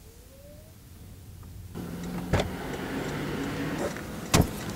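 Car passenger door opening, suddenly letting in street noise and the low steady hum of a bus engine close behind. A knock about half a second later and a louder thump near the end come as a passenger climbs into the seat.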